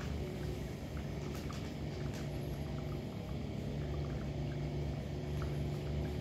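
Cats eating wet food: small, irregular clicks and smacks of chewing and licking, over a steady low hum.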